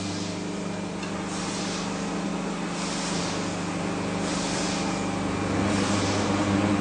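Injection moulding machine running: a steady electric hum, with a hiss that swells about every second and a half, growing louder near the end.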